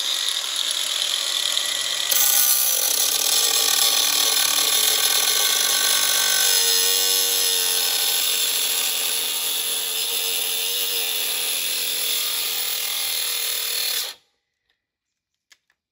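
Makita 18V cordless angle grinder running and cutting into a car radiator core: a loud, steady high-pitched grinding whine that gets louder about two seconds in as the disc bites, dips in pitch now and then, and cuts off suddenly about fourteen seconds in. The battery grinder is too weak for the job, with no grunt.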